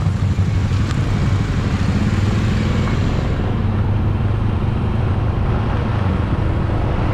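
Motorcycle engine running steadily while riding, a low pulsing hum with wind and road noise over it; the high hiss thins a little about three seconds in.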